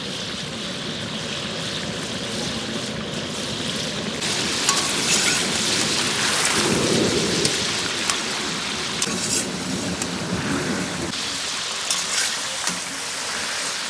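Chicken pieces sizzling in hot oil in a steel karahi over a high flame: a steady sizzle that grows louder about four seconds in and eases again a few seconds later, with a few sharp clicks.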